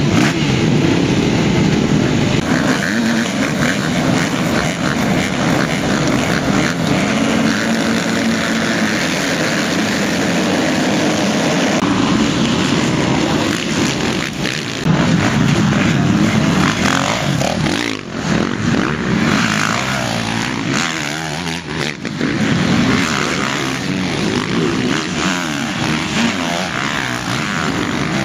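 Motocross bike engines running and revving on a dirt track, several machines at once, pitch rising and falling with the throttle.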